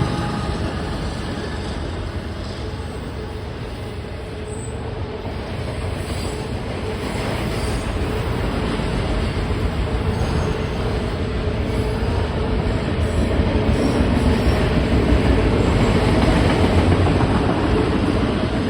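CSX autorack freight train rolling past: a steady rumble and clatter of the cars' wheels on the rails, growing louder in the second half.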